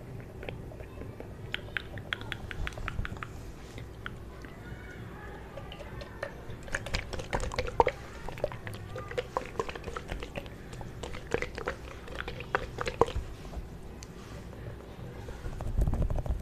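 Close-up clicks and taps from a small handled object, coming in quick runs and densest in the middle, with a low thud near the end.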